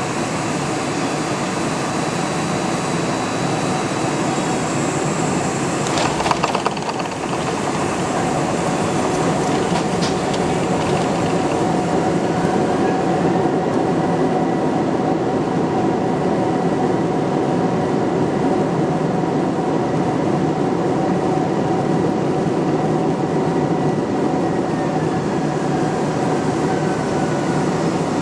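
Cabin noise of a Boeing 747 during landing: a steady rumble and rush of air, with a brief rattling clatter about six seconds in. Partway through, a thin steady whine rises in, holds, and slides away near the end.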